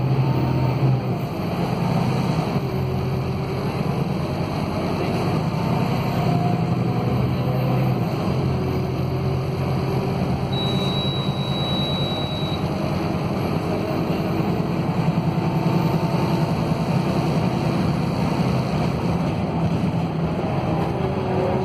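Scania DC09 five-cylinder diesel engine of a Scania K280UB city bus, heard from inside the passenger cabin while the bus drives along. It holds a steady low hum, with higher drivetrain tones rising and falling as the bus speeds up and slows.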